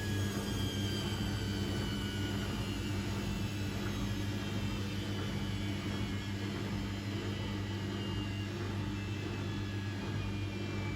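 Zanussi Essential ZWF12070W washing machine running down at the end of its cycle: a steady low hum with a motor whine slowly falling in pitch as the drum slows.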